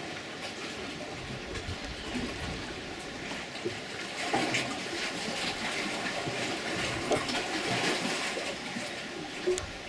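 Running water: a steady splashing rush that grows somewhat louder about four seconds in.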